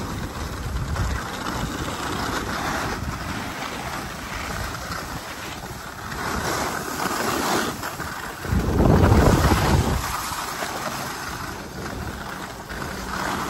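Wind rumbling on the microphone and skis hissing over packed snow on a downhill run, with a louder burst of rumble about nine seconds in.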